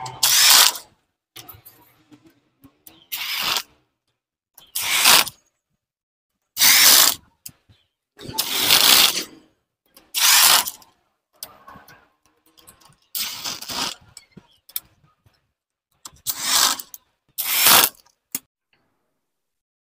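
Socket ratchet wrench clicking in short bursts as it runs down the bolts of a Honda Twister's clutch-side engine cover. There are about nine bursts, each under a second, a second or a few seconds apart.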